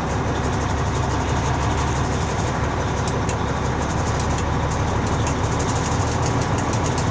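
Caterpillar 3406E inline-six diesel in a 1983 Mack Cruiseliner idling steadily while the air system builds pressure.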